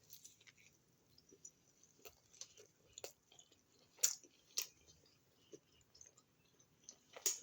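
Faint, close-miked chewing of food: scattered soft wet mouth clicks and smacks, a few louder ones about four seconds in and near the end.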